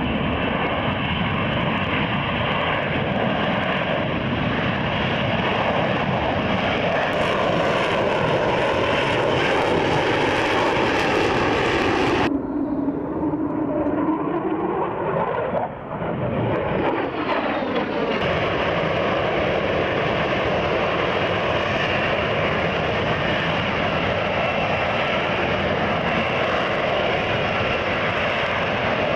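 Lockheed Martin F-35B's F135 jet engine and shaft-driven lift fan running loud and steady as the jet hovers in STOVL mode. About twelve seconds in the sound turns duller for a few seconds while a tone falls and then rises again, before the full roar returns.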